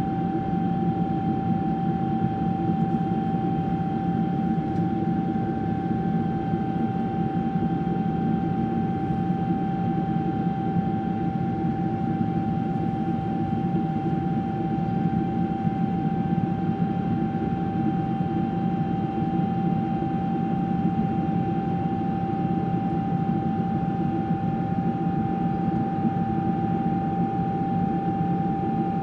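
Boeing 777-200 turbofan engine heard from inside the cabin in flight: a steady, even drone with a steady high whine on top and no change in pitch.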